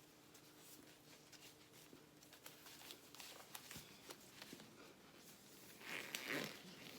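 Near silence: room tone with faint scattered small clicks, and a brief soft rustle about six seconds in.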